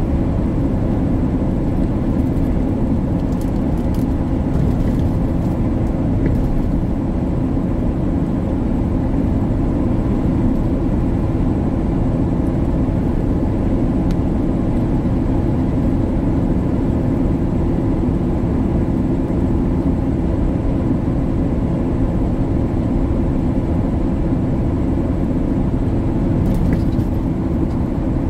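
Tractor-trailer heard from inside the cab at highway speed: a steady low engine drone and road rumble with no change in pace.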